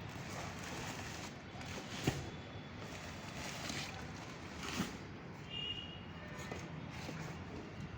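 Steady background noise broken by two sharp knocks, about two seconds and about five seconds in.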